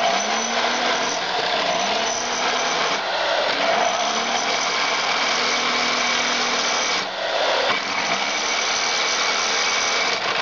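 Electric hand drill running steadily as it bores into a black panel, easing off briefly about seven seconds in.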